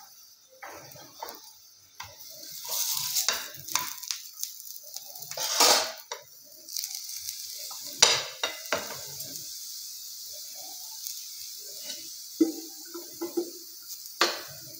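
Spinach paratha sizzling in a frying pan, with the hiss starting about two seconds in. Several knocks and clatters of pan and utensil come as it is turned over.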